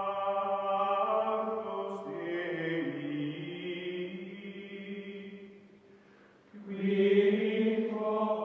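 Music of long, held chant-like voices or choir tones, slowly shifting in pitch, in two phrases with a short pause between them; the second phrase is louder.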